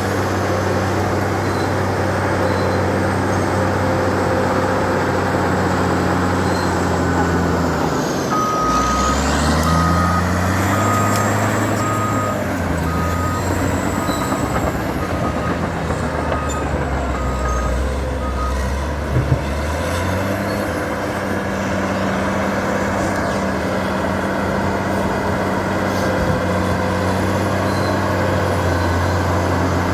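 Caterpillar D8 bulldozer's diesel engine running steadily. About eight seconds in its pitch drops and wavers while a reversing alarm beeps about once a second for some ten seconds, then the engine returns to its steady note.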